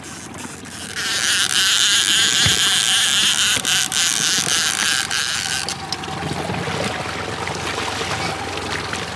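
Water rushing and splashing beside a trolling boat as a hooked coho salmon is brought into a landing net. A loud hiss sets in about a second in and eases off a little past halfway, with a few sharp splashes or knocks in it.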